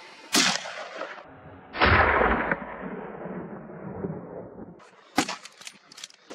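Gunshots in open country: a sharp crack, then about a second and a half later a louder shot whose echo rolls on and fades over about three seconds. A third, shorter crack comes near the end.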